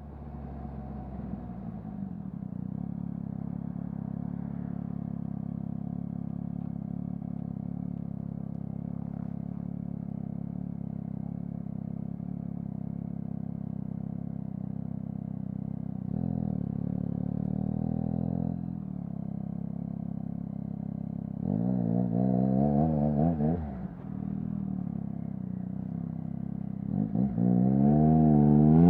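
2021 Yamaha MT-09's three-cylinder engine running through a Mivv full-system aftermarket exhaust. It idles steadily, and its revs rise slightly for a couple of seconds about sixteen seconds in. About twenty-two seconds in it is blipped up and back down, and near the end it revs up again.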